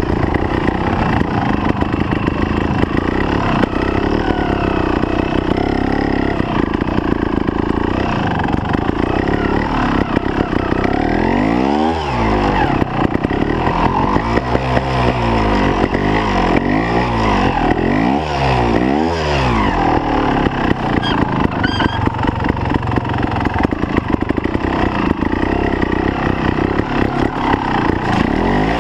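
Trials motorcycle engine running at low revs as the bike is ridden through the section. In the middle the revs rise and fall again and again in short throttle blips.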